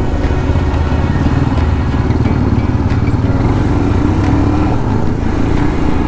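Royal Enfield Himalayan's single-cylinder engine pulling under acceleration through an overtake, with a fast, even beat.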